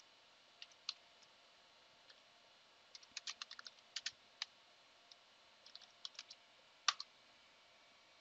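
Quiet keystrokes on a computer keyboard as a command is typed: scattered clicks in short runs, with one louder keystroke about seven seconds in.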